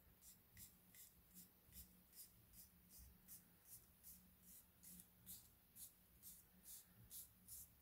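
Near silence with a faint, soft rhythmic rasp, about two to three strokes a second: a paper strip being wound onto a plastic slotted quilling tool. A steady low hum sits underneath.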